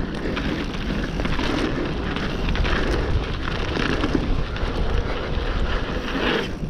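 Mountain bike rolling fast down a loose dry dirt trail: tyre noise on dirt and gravel with wind rushing over the microphone, and frequent small knocks and rattles from the bike over bumps.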